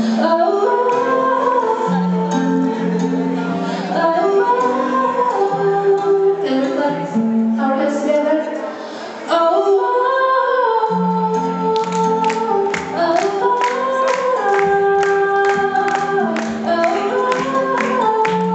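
A woman singing a melody to the accompaniment of a plucked sasando, the bamboo tube zither of Rote Island set in a lontar palm-leaf resonator. The plucking grows busier about halfway through.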